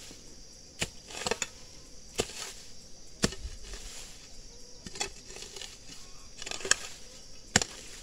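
A hoe chopping into weedy ground: about six sharp strikes, a second or so apart, with rustling of weeds between them.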